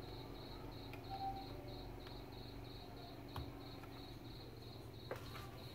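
A few faint clicks and taps as a power connector is worked onto a circuit board's socket. Under them run a low steady hum and a steady high chirp repeating about four times a second.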